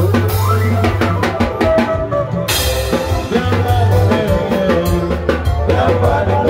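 Live band music played loud, led by a drum kit with a steady beat over a bass line, and a cymbal crash about two and a half seconds in.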